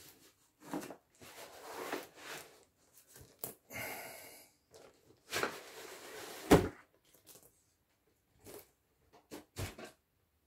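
A cardboard product box being handled and opened: a string of short scrapes and rustles, with one sharp knock about two thirds of the way through.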